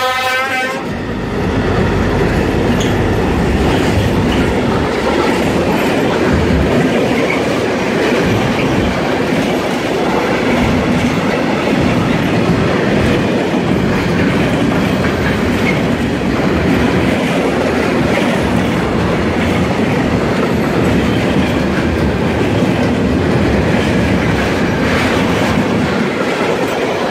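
Freight train of gas tank wagons rolling past at speed: a steady noise of wheels running on the rails. A train horn blast cuts off right at the start.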